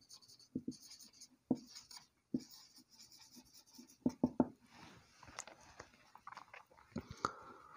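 Faint marker pen writing on a whiteboard: short strokes with a few light taps in between.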